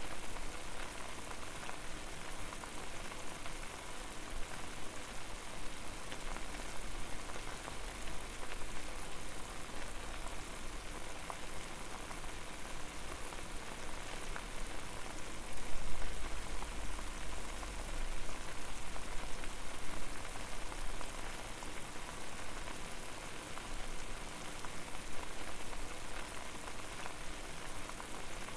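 Pot of water at a rolling boil over a fire: a steady bubbling hiss dense with tiny pops, with a low rumble that swells for a few seconds past the middle.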